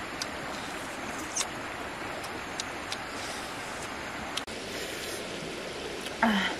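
Steady rushing outdoor background noise, with scattered faint clicks and a brief low hum falling in pitch near the end.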